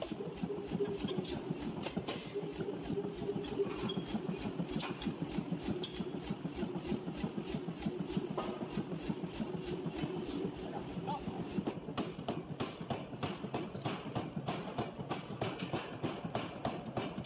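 Forging hammer striking a red-hot steel ring on the anvil in rapid, regular blows, about five a second, over a steady machine hum.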